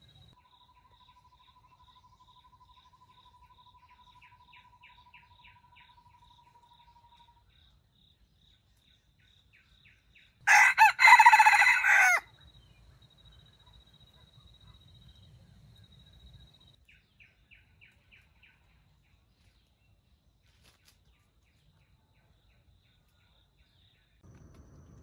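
Jungle fowl rooster crowing once about ten seconds in, a short crow of under two seconds, over faint steady high-pitched trilling and scattered chirps.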